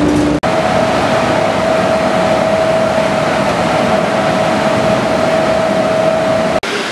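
Apple-sorting conveyor line running with a steady mechanical noise and a constant mid-pitched whine. Less than half a second in, it replaces a lower machine hum abruptly, and it cuts off abruptly near the end.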